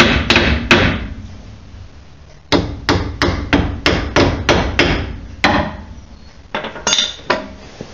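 Brass hammer tapping a carrier bearing shim into a Ford 8.8-inch differential housing, driving it home to preload the carrier bearings. Light, quick metal-on-metal strikes, each ringing briefly: a couple at first, then after a short pause a run of about three strikes a second, ending in a few fainter taps.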